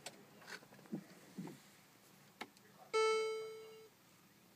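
A single electronic chime from the Mercedes-Benz SLS AMG GT's cabin: one clear pitched tone with overtones that starts sharply about three seconds in and fades out within a second. A few soft clicks come before it as the console switches are handled.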